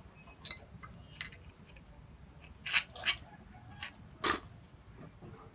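About six short clicks and knocks spread over a few seconds, the strongest about four seconds in, from a glass soju bottle and a drinking glass being handled.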